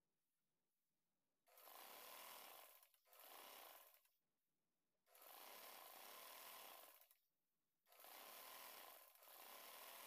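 Faint sewing machine stitching a trouser crotch seam in several short runs of a second or two, with pauses between them while the fabric is repositioned.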